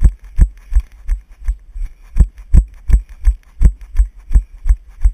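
Running footfalls, steady thumps about three a second, jolting a body-worn GoPro action camera as its wearer runs.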